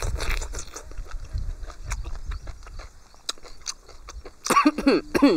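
A man slurping octopus soup from a ladle and chewing the tentacles: a run of irregular wet clicks and smacks. About four and a half seconds in he makes a few short vocal sounds that fall in pitch.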